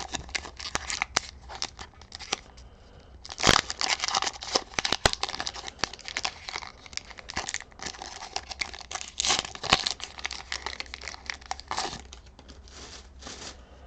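Foil wrapper of a Pokémon TCG booster pack being torn open and crinkled: continuous crackling with a few sharper rips, the loudest about three and a half seconds in.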